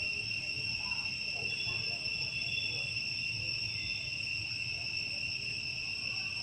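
Insects droning steadily in the surrounding trees: an unbroken high-pitched whine at two pitches.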